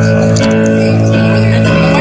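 Live amplified band music led by guitar, with held chords over a steady bass, loud as picked up on a phone.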